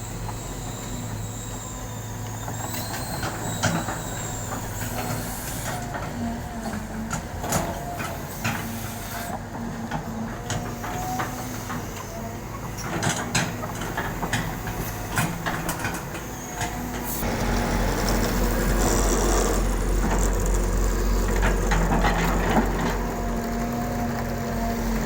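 Caterpillar excavator's diesel engine running, with a whine that comes and goes and many scattered knocks and clanks. About two-thirds of the way through the engine grows louder and deeper.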